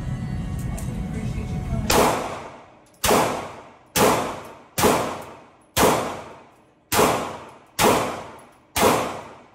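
A gun fired eight times at an even pace of about one shot a second, starting about two seconds in; each sharp report is followed by a long ringing echo that fades before the next.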